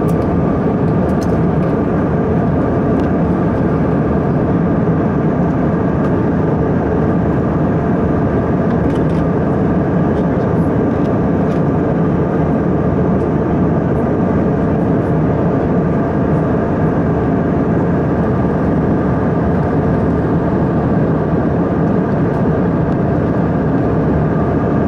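Aircraft cabin noise in flight: a loud, unbroken rush of engines and airflow with a few faint steady tones, heard from inside the cabin.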